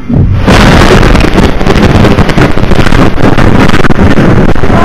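Explosion blast: a sudden, very loud, distorted onset about a third of a second in. It is followed by a continuous loud rumbling noise full of crackles that does not let up.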